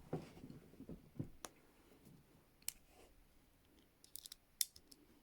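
Faint, scattered metallic clicks of handcuffs being worked with a key during an escape attempt, a few single clicks, then a small cluster near the end.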